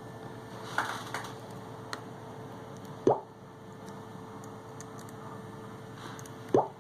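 Small clicks and taps of iPhone 6 parts being handled during reassembly, with two louder short squeaky clicks, one about three seconds in and one near the end, over a steady electrical hum.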